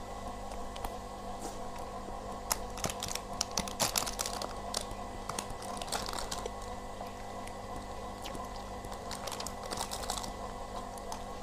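Close-up eating: crunchy chewing and biting of fried food from a boxed rice meal, with irregular clicks and light crinkling of the cardboard box and plastic wrap, over a steady background hum.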